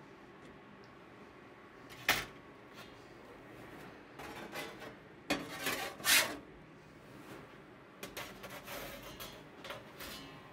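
Metal clanks and scrapes from a gas grill's lid being raised and a metal pizza peel working on the grates: a sharp clank about two seconds in, a louder clatter of metal around five to six seconds in, then lighter scraping and rattling near the end.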